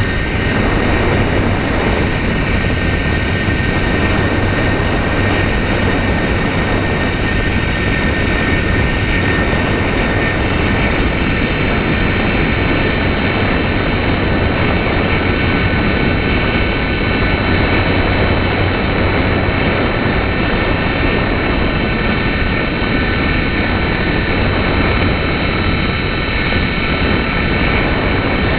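Slow Stick model plane's electric motor and propeller running at full throttle in a steady climb: one high, steady whine, with airflow rushing over the onboard microphone.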